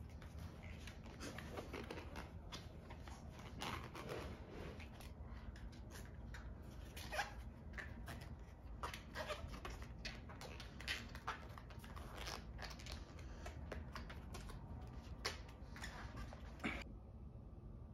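Hands working at an old shoe: irregular rustling and scraping with small sharp clicks, which stop suddenly near the end.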